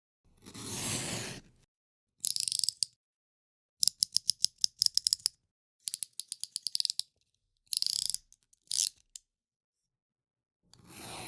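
Snap-off utility knife (cutter knife) with its blade slider being ratcheted in and out, making several runs of rapid sharp clicks. A short scraping rush comes near the start and again near the end.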